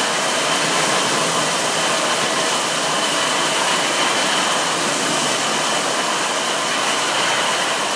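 Automatic car wash at work: spinning cloth brushes scrubbing a car under water spray, a steady rushing noise with a thin, steady high whine running through it.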